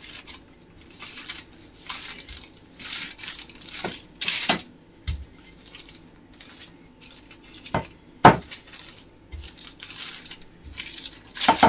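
Kitchen worktop handling noises while pizza dough is rolled out on parchment paper: scattered knocks and light clinks mixed with short rustles, with two sharper knocks about eight seconds in.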